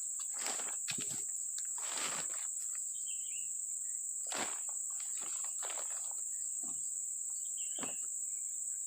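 A steady high-pitched drone of insects, crickets or cicadas, goes on throughout. About seven irregular short scuffs or rustles sound over it, the kind made by someone moving about on foot.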